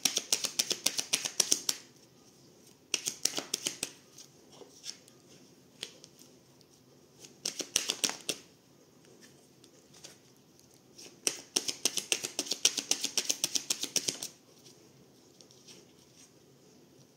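A deck of Oracle Belline cards being shuffled and riffled in the hands, in four bursts of fast clicking, the longest about three seconds, with quiet gaps between.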